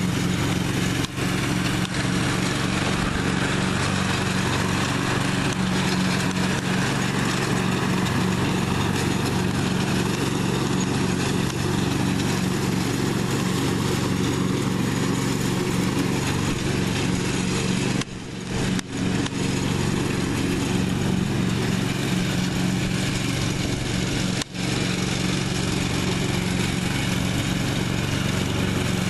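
1998 Husqvarna riding lawn mower engine running steadily under load while mowing, with a few brief dropouts in the sound.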